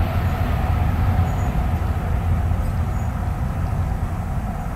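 Steady low rumble of an ICE high-speed train running into a tunnel at about 300 km/h, the noise of the passage still heavy in the air and easing slightly near the end.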